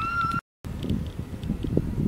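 Wind buffeting the microphone with an uneven low rumble. It follows a short rising call at the very start, which cuts off abruptly at a brief gap of dead silence.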